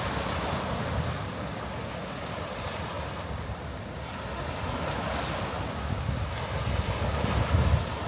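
Small sea waves breaking and washing up a shelly beach, with wind buffeting the microphone, the rumble strongest near the end.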